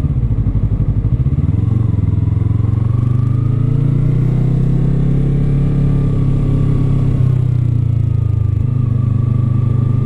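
Yamaha R3's parallel-twin engine running while the bike is ridden. The revs climb over the first couple of seconds, then hold steady at cruise.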